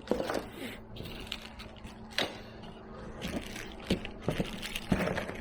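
Irregular clicks, taps and light knocks of a device's rack-mounting kit being handled and fitted, with a few sharper knocks about two seconds in and near the end.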